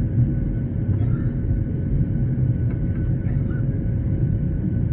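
Jet airliner cabin noise in the climb just after take-off: a steady low rumble with a constant engine drone tone running above it, and a few faint light rattles.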